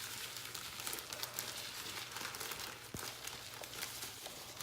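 Sand mix pouring from its packet into a plastic zip-top bag, a faint steady hiss of grains with fine ticks and plastic crinkling.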